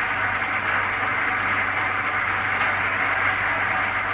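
Vacuum cleaner running steadily: an even rushing whoosh with a low hum under it.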